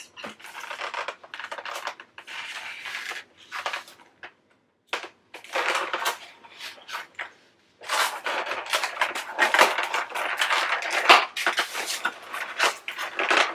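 Foam takeout clamshell containers being handled, their lids pressed shut and the boxes pushed across the table: a run of irregular crunching, creaking scrapes and clicks, with brief pauses about four and seven and a half seconds in.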